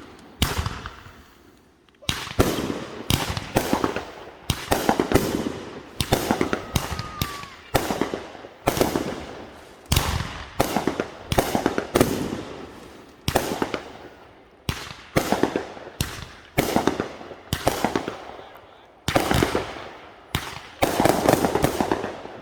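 Fireworks going off in a rapid run of loud, sharp bangs, often one or two a second, each ringing out with an echoing tail.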